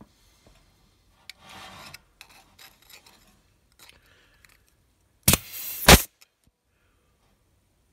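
Pneumatic air punch/flange tool cycling on a thin steel sheet held in its jaws: a sharp snap, a brief rush of air, and a second sharp snap about two-thirds of a second later. Fainter rustles of the sheet metal being handled come earlier.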